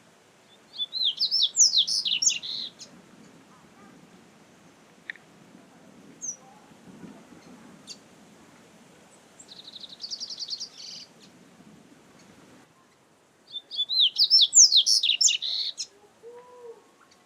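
Double-collared seedeater (coleiro) singing: two bursts of fast, high warbling song about two seconds each, one near the start and one near the end, with a shorter rapid trill between them.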